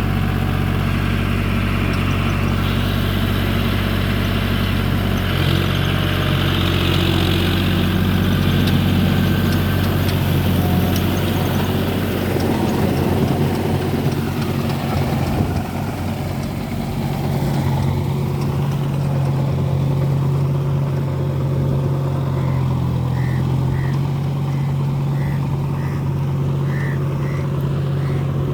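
John Deere four-wheel-drive tractor's diesel engine running steadily under load while ploughing through deep mud, its engine note shifting about halfway through.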